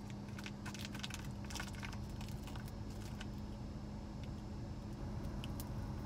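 Crackling and rustling of a roll of glossy wrapping paper being picked at and handled, dense for the first couple of seconds and then only an occasional click, over a steady low hum.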